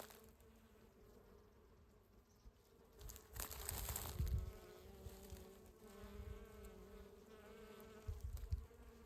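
Bees buzzing around a rosemary bush, a faint steady hum. A brief low rumble comes in about three seconds in.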